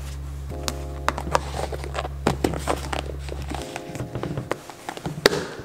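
Plastic food container being closed with its lid: a series of light plastic clicks and taps, with a sharper click near the end as the lid snaps on. Soft piano music plays underneath.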